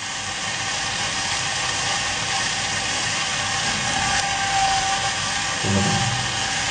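Steady whirring hiss of a small electric motor, such as the robot's cooling fan, with a faint steady whine; it grows a little louder over the first second or so.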